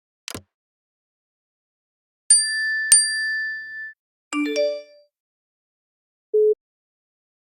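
A series of iPadOS built-in system sound effects played one after another: a brief swoosh, two bell-like dings each ringing for about a second, a quick run of short electronic notes, then a short low beep.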